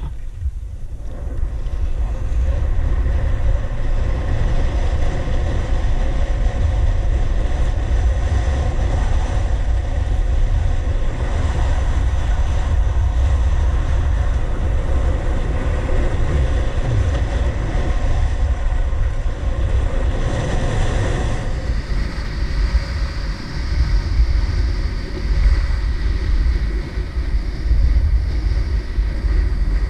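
Wind buffeting a helmet-mounted action camera's microphone during a ski descent, a steady low rumble, with skis hissing and scraping over groomed snow. A higher scraping hiss joins about two-thirds of the way through.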